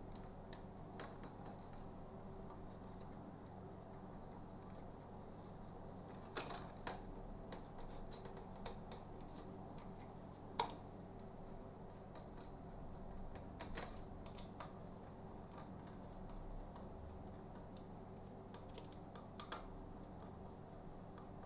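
Screws being tightened on a laptop's CPU heatsink with a small screwdriver and the parts handled: irregular light clicks and ticks, some in quick clusters.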